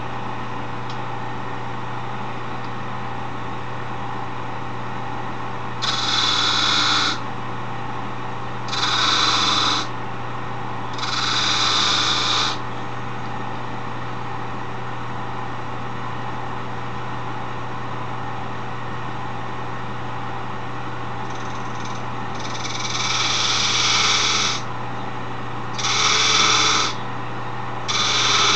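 Wood lathe running with a steady motor hum. A turning tool is pressed into the spinning wooden handle in six short cuts of one to two seconds each, scraping as it squares up the piece and cuts grooves.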